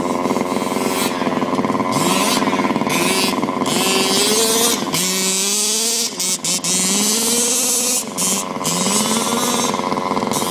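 Small two-stroke petrol engines of 1/5-scale HPI Baja 5T radio-controlled trucks running, one revving up and easing off again and again in rising and falling sweeps every second or two, over a steady engine buzz. A hiss cuts in and out over it.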